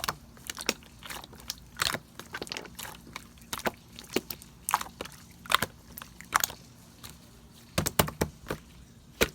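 Clear slime being squeezed and pressed by hand, giving irregular wet pops and clicks, a few every second.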